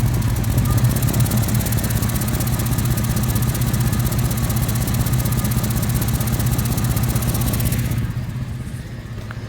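A 1989 Chevy C1500 pickup's engine idling, with the rapid, even ticking of exhaust leaks at the header collectors, the right one leaking worse. About eight seconds in, the sharp ticking fades and a duller engine sound is left.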